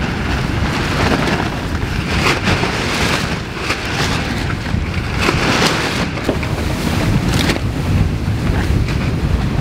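Wind buffeting the microphone on the deck of a sailing catamaran under way, over the rush of sea water, with irregular louder gusts.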